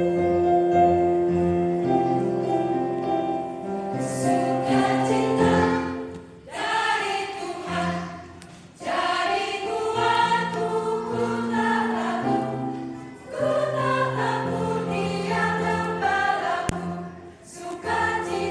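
Mixed church choir singing a hymn in parts over a sustained instrumental accompaniment. The voices come in about four seconds in and sing in phrases, with short breaks between them.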